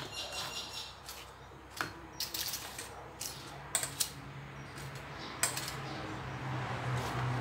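Metal tongs clicking and scraping against a stainless steel bowl as crisp fried wontons are picked up and set on a plate, a handful of sharp clinks with a quick clatter of them a little after two seconds.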